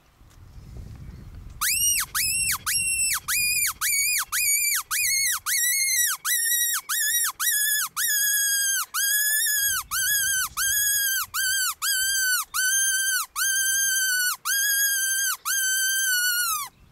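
A predator call used to hold a fox's attention. It gives a long run of loud, squealing whistle notes, each one swooping up sharply and then settling. The notes come about three a second at first and ease to about two, growing slightly lower and longer, then stop abruptly near the end.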